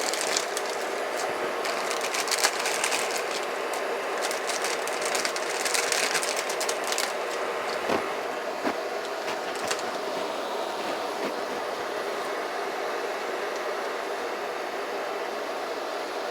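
Pot of water with green beans boiling on a hot plate: a steady bubbling rush with irregular crackles and small knocks, busiest in the first half.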